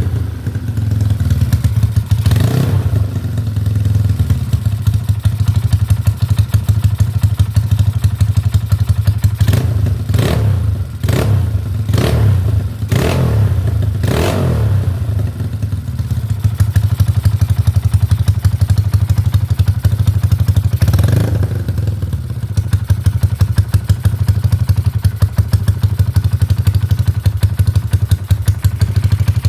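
Yamaha Mio scooter's single-cylinder engine, bored up to 200cc, idling. It is revved in a quick series of short throttle blips during the first half and once more later, then settles back to an even idle.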